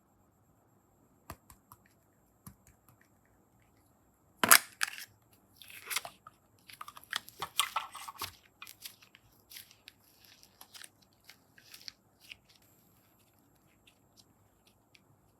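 Close-up handling of slime and clay: a sharp snap about four and a half seconds in, a few seconds of crackling, and scattered small clicks.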